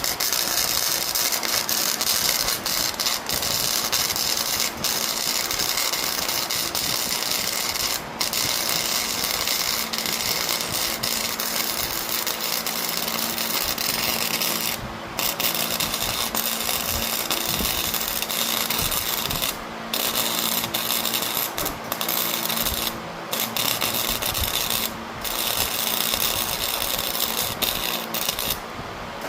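Welding arc crackling and hissing steadily on the steel frame rails, with a steady low hum underneath. It breaks off briefly several times as the arc stops and restarts between beads.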